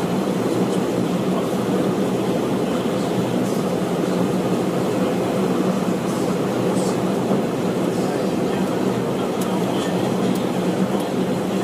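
Steady drone and hum of a Bombardier Dash 8 Q400 heard from inside its flight deck on the ground, even in level throughout, with a few faint clicks.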